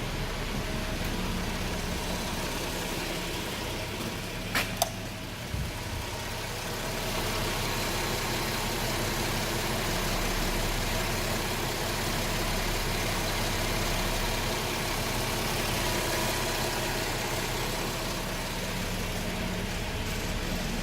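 Car engine idling steadily, with a couple of sharp clicks about four and a half seconds in; from about seven seconds a hiss grows beneath the idle.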